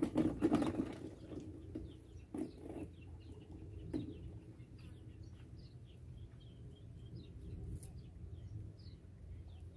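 Small birds chirping over and over in short, high notes, above a steady low rumble. There are a few sharp knocks in the first second and again at about two and a half and four seconds in.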